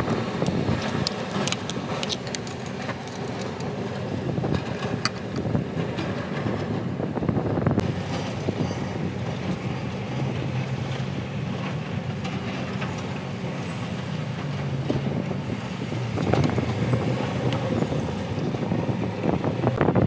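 An engine runs steadily in the background with wind on the microphone, mixed with scattered light metallic clicks of hand tools against a radiator hose clamp.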